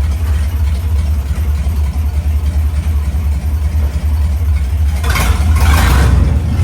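Square-body Chevy pickup's engine idling steadily while the truck is tried in gear, its transmission low on fluid. About five seconds in, a louder rushing noise rises for a second or so.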